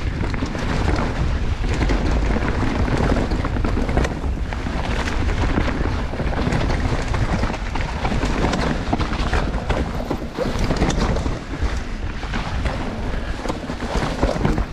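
Mountain bike riding fast down a rough natural dirt trail: tyres rumbling over the ground and the bike clattering over bumps, with wind buffeting the microphone.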